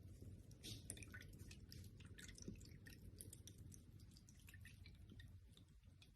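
Near silence: faint, irregular soft clicks over a low steady hum.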